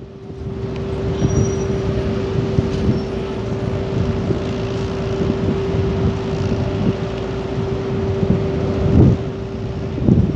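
Crawler crane diesel engines running steadily under load during a tandem lift, with a constant whine over a low rumble. Wind buffets the microphone near the end.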